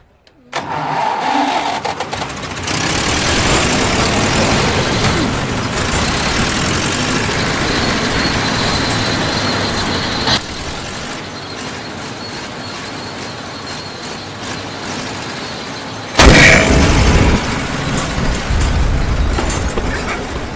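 Road roller's engine starting up and running loudly. About sixteen seconds in there is a sudden louder blast that is followed by noisy running.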